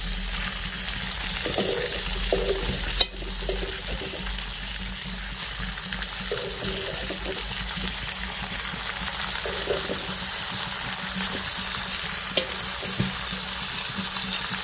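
Chicken liver pieces frying in hot oil with green chillies and curry leaves, giving a steady sizzle while being stirred with a spatula, with scraping in the pan and one sharp knock about three seconds in.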